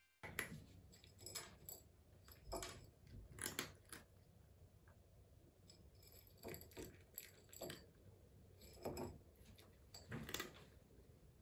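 A cat eating dry kibble from a small ceramic dish: quiet, irregular crunches and clinks of kibble against the dish, a few every second or two.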